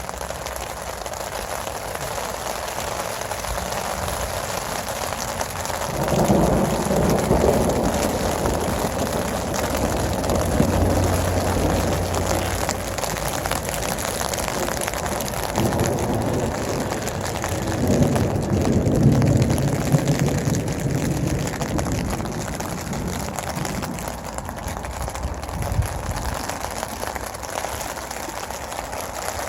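Steady heavy rain falling on a tent, with low rolls of thunder swelling about six seconds in and again around eighteen to twenty seconds in.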